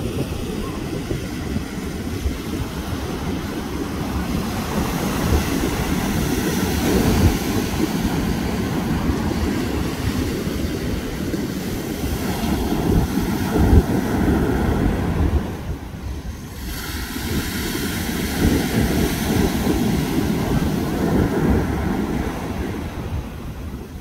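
Ocean surf breaking and washing up on a sandy beach, with a heavy low rumble of wind buffeting the microphone.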